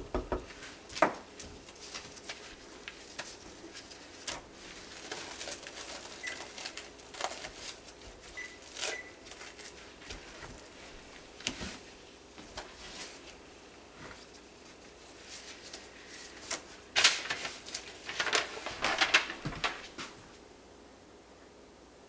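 A spoon scraping and stirring thick hot-process soap batter in a ceramic slow-cooker crock, then plastic cling wrap crinkling as it is pulled and pressed down over the crock, the crinkling loudest near the end.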